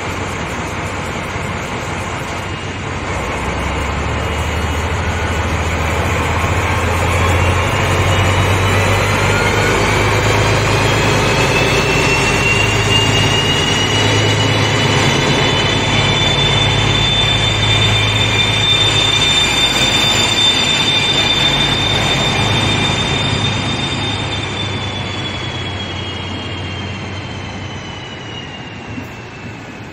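Two DB class 218 diesel-hydraulic locomotives with MTU 12V 956 TB 11 engines pulling away under power with an Intercity train. There is a deep engine throb, and a high whine rises as they power up and then holds steady. Near the end the sound drops in pitch and fades as the locomotives draw away.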